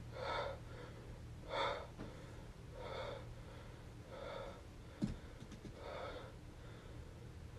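A man breathing heavily: five deep, gasping breaths, about one every second and a half, with a sharp click about five seconds in.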